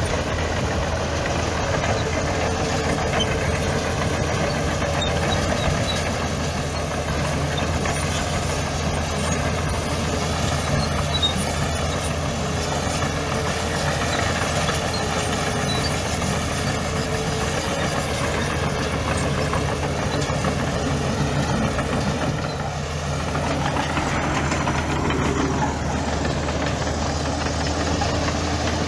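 Diesel engine of heavy earthmoving machinery running steadily at a constant speed, with a slight dip in level about three quarters of the way through.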